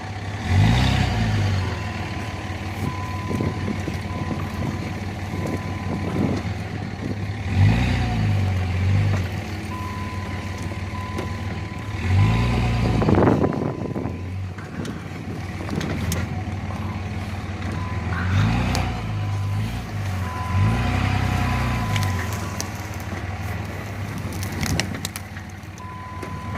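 A four-wheel-drive vehicle's engine driving slowly over rough ground. It revs up and eases off again about six times, with a faint steady high tone coming and going.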